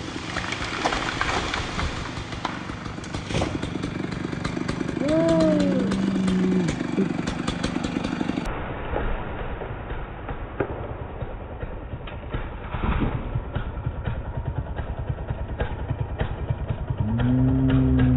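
Stihl chainsaw revved up and let back down twice, each time rising and then falling in pitch, over a bed of steady noise with many small cracks and knocks.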